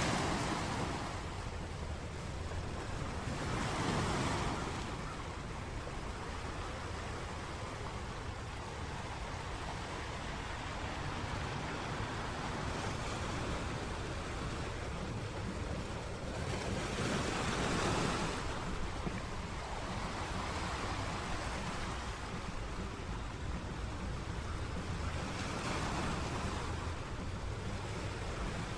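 Sea waves breaking and washing up the shore, the surf swelling louder every several seconds, most strongly about 4, 18 and 27 seconds in. Wind rumbles on the microphone underneath.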